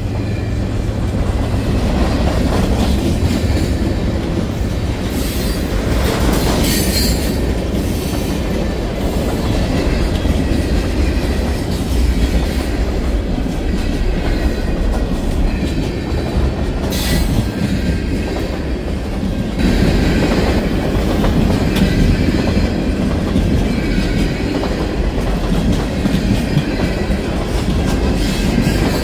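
Freight cars of a long train rolling past at track side: a steady rumble of steel wheels on rail, with brief high squeals about six and seventeen seconds in.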